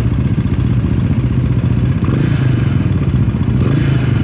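Several motorcycle engines idling together in a steady low drone, with short louder bursts about two seconds in and again near the end.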